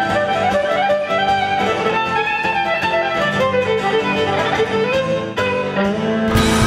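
Fiddle playing a fast tune of quick, short notes over acoustic guitar accompaniment, with an abrupt change to a fuller, brighter passage near the end.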